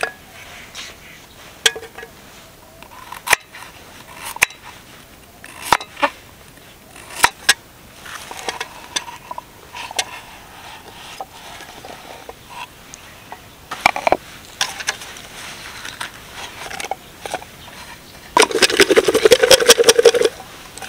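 Pieces of chopped vegetable dropped into a steel canteen mug, with scattered light clinks and knocks of metal and wood. Near the end comes a loud, rapid rattling clatter lasting about two seconds as the metal canteen container is shaken and handled.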